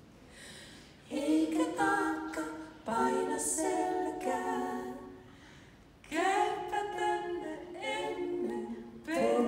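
Six-voice mixed a cappella ensemble singing in close harmony, unaccompanied, in phrases that swell and fall back, with a soft pause about five seconds in.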